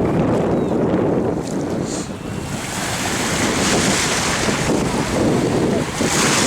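Wind buffeting the camcorder's microphone over the wash of breaking surf.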